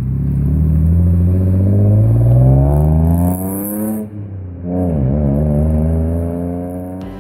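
Car engine accelerating hard, its pitch climbing for about four seconds, then dropping sharply as if on a gear change before revving up again. Music starts right at the end.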